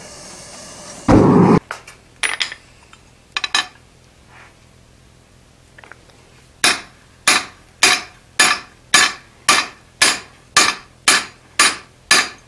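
A hand hammer striking the top arm of a pivoted fullering jig set in an anvil's hardy hole, fullering a groove into a red-hot steel pipe: a steady run of sharp metal-on-metal blows at about two a second, starting about halfway through. Before that, a loud thump about a second in and a few light clinks of steel being handled.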